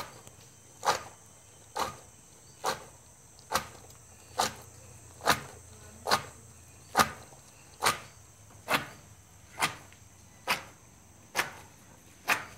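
Heavy wooden pestle pounding fresh robusta coffee cherries in a wooden mortar: a steady run of dull thuds, a little over one a second. The pounding knocks the skins off the beans.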